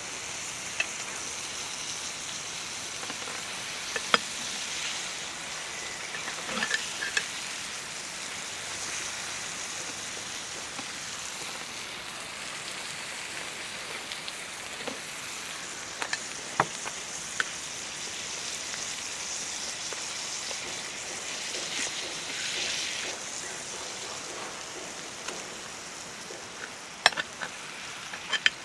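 Food sizzling steadily in a pan, with occasional sharp clinks and taps of utensils, a few of them near the end.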